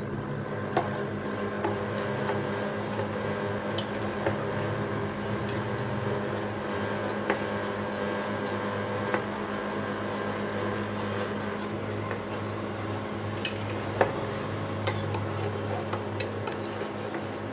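A spoon working in a cooking pot, with scattered sharp clinks and knocks of metal on metal, over a steady low hum.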